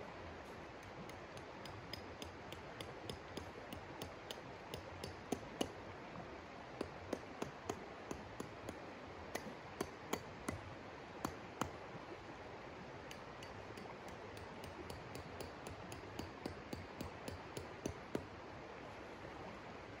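Shallow river flowing steadily, with a run of small, sharp clicks and clinks, two or three a second, from hands working in the water at the river's edge; the clicks pause briefly about twelve seconds in and stop near the end.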